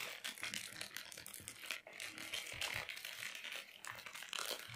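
White mailer package being torn open and crumpled by hand: a run of irregular crinkling and tearing crackles.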